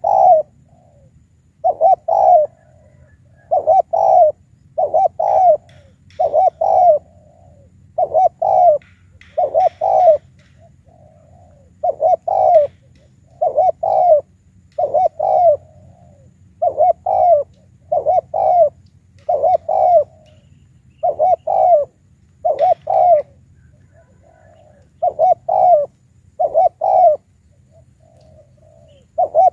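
Spotted dove cooing over and over in two-note phrases, about one phrase every second and a half, with a short pause a little past the middle.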